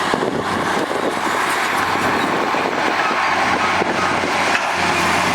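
Heavy earthmoving equipment running: a loud, steady engine noise, with a steadier low note coming in near the end.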